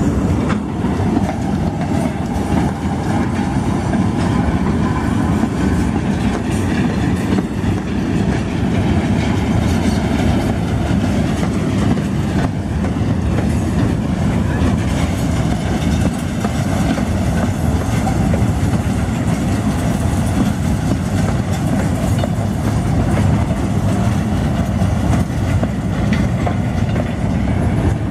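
Empty stake-sided railway flatcars rolling past at close range: a steady, loud running noise of steel wheels on the rails.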